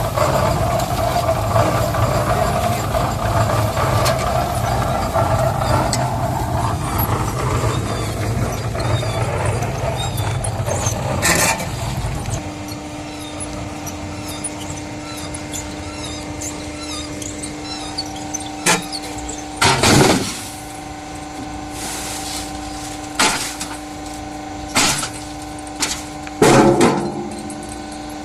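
Concrete mixer machine's engine running steadily for about twelve seconds, then dropping to a quieter steady hum. A few sharp clanks come later, the loudest near the end.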